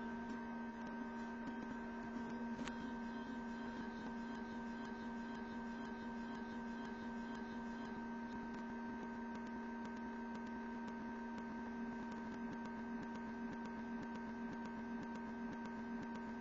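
Steady electrical hum at a few fixed pitches, with faint scattered ticks and one sharper click nearly three seconds in.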